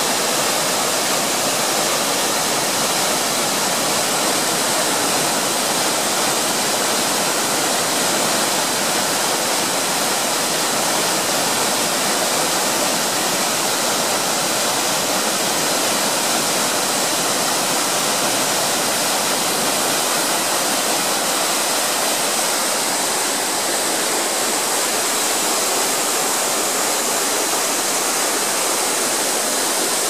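Steady rush of a small waterfall and the stream cascading over rocks below it.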